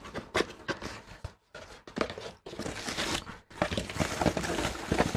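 Cardboard packaging being slid open, then a thin foam wrapping bag rustling and crinkling as it is pulled back by hand, in a run of irregular scrapes and small clicks.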